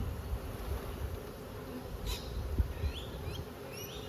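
Honey bees buzzing around an opened hive, a steady hum. A sharp click about two seconds in, and a bird chirping repeatedly in the second half.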